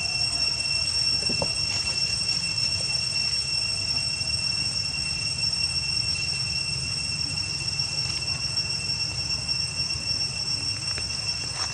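Cicadas droning steadily at a high, even pitch over a low rumble, with a few faint snaps.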